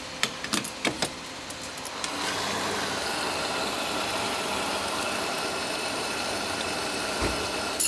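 Petrol pump nozzle clicking as it is seated in a van's filler neck. About two seconds in, the dispenser starts pumping fuel into the tank with a steady hiss and a faint hum. A sharp click comes at the very end.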